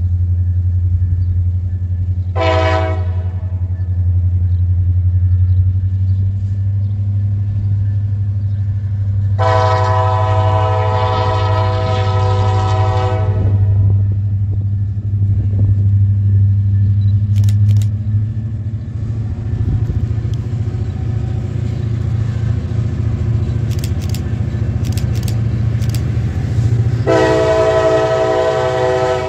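Diesel locomotive's air horn sounding from an approaching train: a short blast about two and a half seconds in, a long blast of about four seconds around ten seconds in, and another long blast starting near the end. Under the horn runs a steady low rumble.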